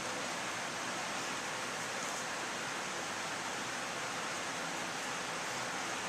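Steady, even hiss of background noise, with no distinct mechanical sound.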